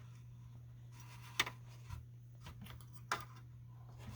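Light handling noises from a small plastic model airplane being worked on by hand: two sharp clicks about a second and a half apart and a few fainter taps, over a steady low hum.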